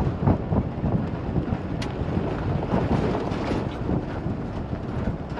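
Wind buffeting the microphone over an irregular rumbling and rattling, with a few sharp clicks.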